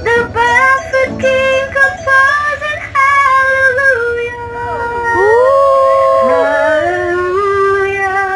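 A woman singing a slow melody into a microphone, holding long notes that slide between pitches.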